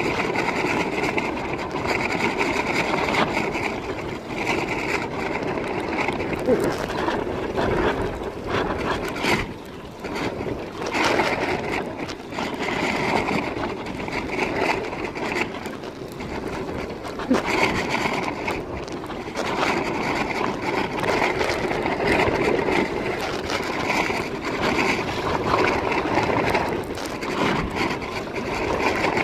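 Wind and water rushing over a phone microphone carried in a life-jacket pocket while wingfoiling, a continuous noise that swells and fades every few seconds.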